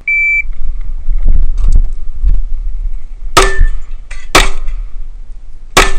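Competition shot timer giving one short high beep, then three handgun shots about three seconds later, roughly a second apart with a slightly longer gap before the third.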